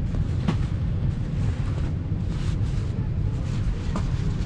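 Padded jackets being handled and pulled from a pile: a few short rustles and clicks over a steady low rumble.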